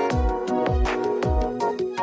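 Background music: sustained synth-like chords over a deep beat that falls in pitch, about two beats a second.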